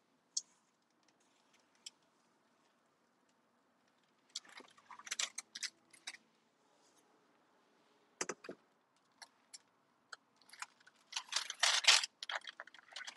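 Kitchen utensils clinking and clattering in short clusters, with single clicks between them and the loudest clatter near the end.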